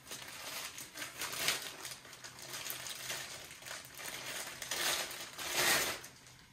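Clear plastic packaging crinkling and rustling as it is pulled off a Benelli M4 shotgun barrel, in several short bursts, the loudest a little before the end.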